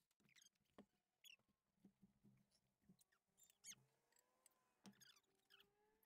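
Near silence, with faint scattered squeaks and light ticks as a motorcycle tire's rubber is worked by hand against the alloy rim.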